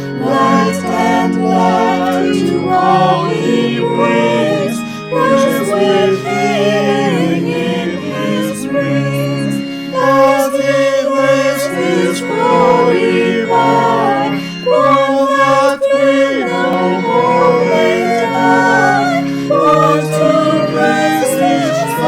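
Choir singing, with sustained low notes underneath the voices.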